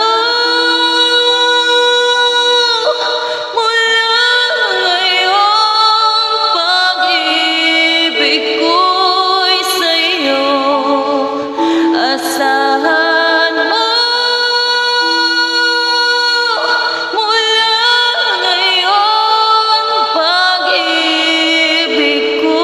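A woman singing a slow song over a backing track of sustained chords, holding long notes of two to three seconds each.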